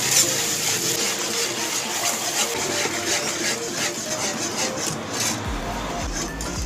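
Wire whisk scraping round and round a metal frying pan, whisking a flour-and-butter roux into added water to make gravy, in a quick run of scraping strokes.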